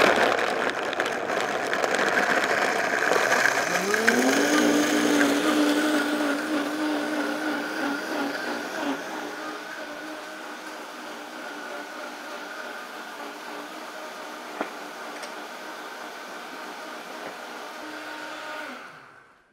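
A Vitamix V1200 blender runs at full speed (speed 10), pulverising cashew queso ingredients so that the friction heats them. The motor tone climbs about four seconds in and then holds steady. The sound grows quieter and smoother from about eight seconds on, then cuts off shortly before the end.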